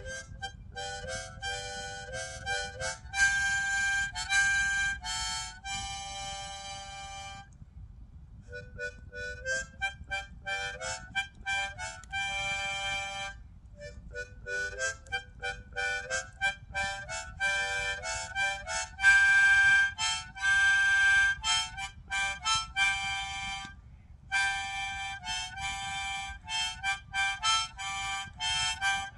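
Harmonica being played: quick runs of short notes mixed with longer held notes and chords, broken by a few brief pauses.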